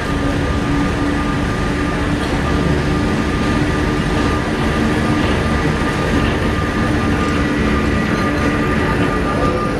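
Historic electric wooden tram of the Sóller tramway running along street rails and passing close by: a steady rumble of wheels on track with a constant motor whine, the lower pitch shifting slightly about halfway through.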